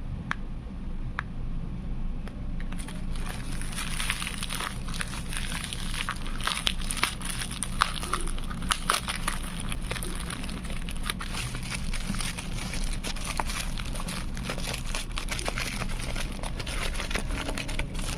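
INDIN BC-R60 pocket AM/FM radio's speaker giving crackling static over a steady hum, with dense irregular clicks and a hiss that comes in about three seconds in: the set tuned off-station, between broadcasts.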